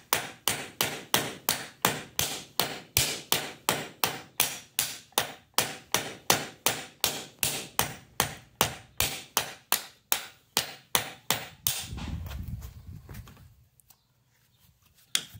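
Ball peen hammer peening over a steel rivet on a sickle bar cutter section against a makeshift anvil: a steady run of sharp hits, about three a second, that stops about twelve seconds in. A brief low rumble of handling follows.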